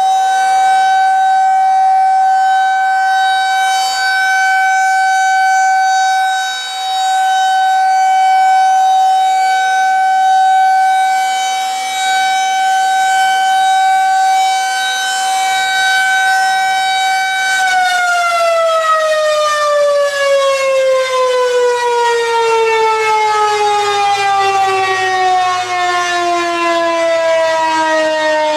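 Federal Signal outdoor warning siren sounding a steady tone during its annual test. About eighteen seconds in, power is cut and the siren winds down as its rotor coasts, the pitch sliding steadily lower.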